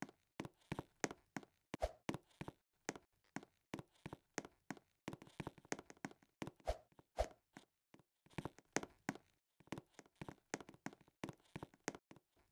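An irregular series of light taps and knocks, a few a second, with short pauses between runs.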